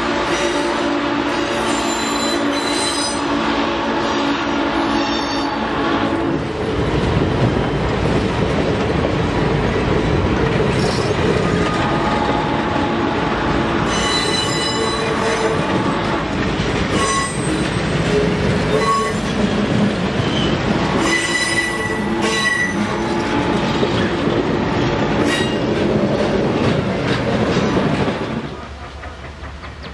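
Passenger cars of a train rolling past with a heavy steady rumble, their wheels squealing on the curve in high sustained tones that come and go. The sound drops away sharply near the end.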